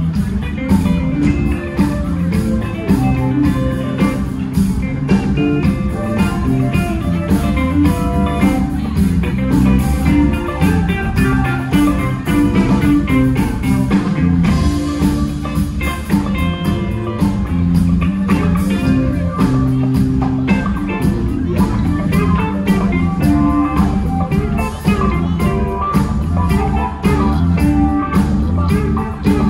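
A band playing blues-rock: guitar over bass and drums, with a steady beat.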